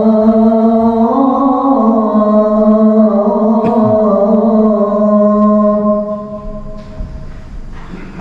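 A man's voice calling the adhan, the Muslim call to prayer, into a microphone: one long drawn-out, ornamented phrase. It steps up in pitch about a second in and fades out near the end.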